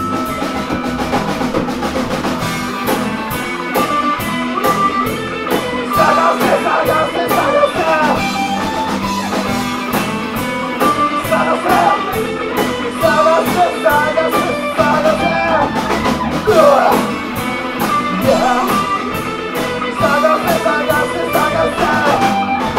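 Live rock band playing an instrumental passage: wavering electric guitar lines over a busy, steady drum kit and bass.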